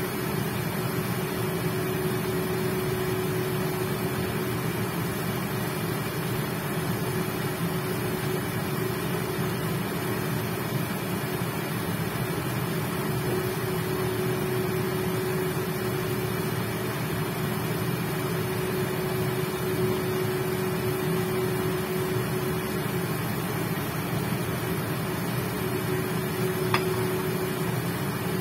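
Induction cooktop running with a steady hum and a constant tone, most likely its cooling fan, over chicken cooking in a covered pan. One small click comes near the end.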